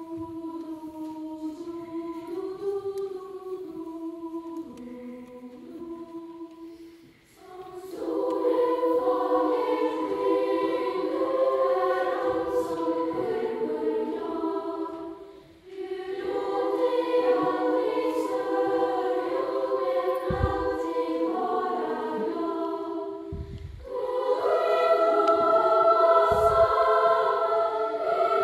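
Children's choir singing. A softer phrase gives way to the full choir coming in louder about eight seconds in. The singing breaks off briefly around the middle, then swells louder again near the end.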